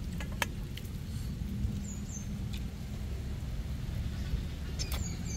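A person eating rice and curry by hand, with wet chewing, lip-smacking and mouth clicks, over a steady low rumble of storm wind and rain. A few brief high chirps come through twice, around two seconds in and near the end.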